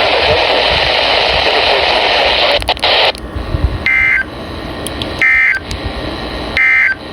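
Weather radio receiver hissing with static for about three seconds, then three short, evenly spaced data bursts of two-tone warbling code about a second apart: the SAME end-of-message signal that closes a NOAA Weather Radio alert.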